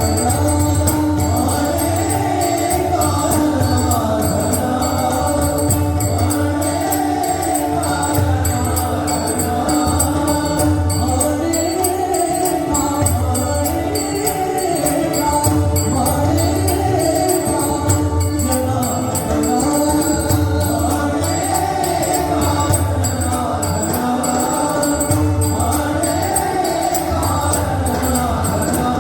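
Marathi devotional abhang being sung, with pakhawaj drum and tabla keeping a steady rhythm beneath the voices.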